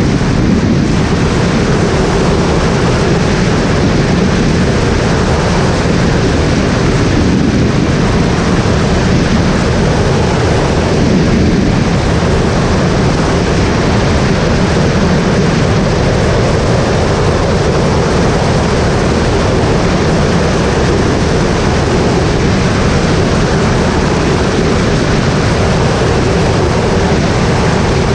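Skyleader 500 ultralight aircraft's engine and propeller running steadily, a loud constant drone under a rush of noise.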